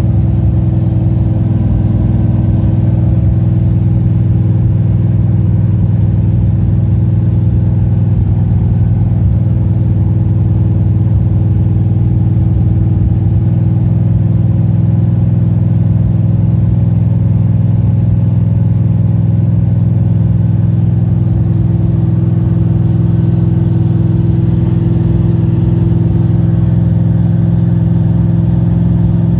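Small-block Chevy V8 of a pro street Camaro running loud and steady while cruising, heard from inside the cabin.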